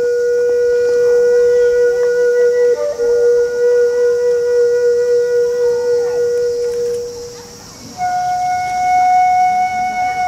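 Japanese transverse flute (yokobue) playing a long held note for about seven seconds, then, after a short break, a higher held note.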